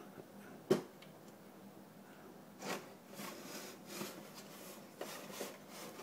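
Mac Pro's metal processor tray being slid out of the case: a sharp click a little under a second in, then faint scraping and a few light knocks as it comes out.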